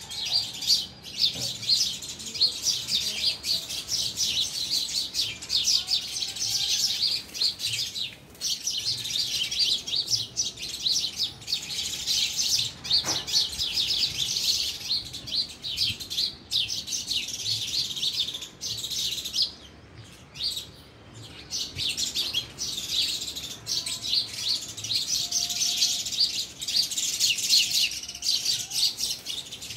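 A flock of house sparrows chirping, many birds at once in a dense, continuous chatter that thins briefly about two-thirds of the way through.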